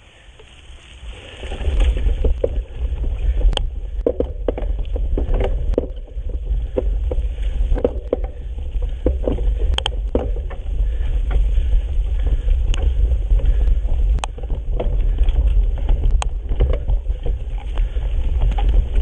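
Wind buffeting the microphone of a mountain bike rider on the move, with frequent sharp clicks and rattles from the bike over rough trail. The rumble comes up about a second and a half in and stays.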